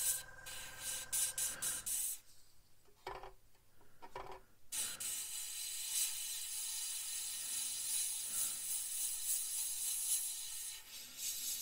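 Gaahleri Mobius airbrush spraying paint, a steady hiss of air that stops about two seconds in and starts again about five seconds in. There are two short soft sounds in the pause.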